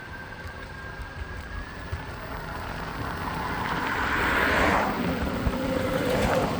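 Meepo Hurricane electric longboard rolling on sidewalk pavement: a steady rumble from the wheels, with a thin, steady high motor whine that fades out about two seconds in. The noise swells louder around four to five seconds in, then eases.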